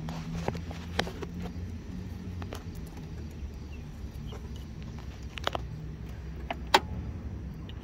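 Scattered light clicks and taps, the loudest a sharp click near the end, over a low steady hum.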